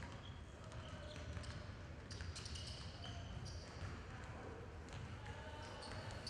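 Ambience of a crowd in a large hall: a steady low rumble under faint voices, with scattered short high squeaks and chirps.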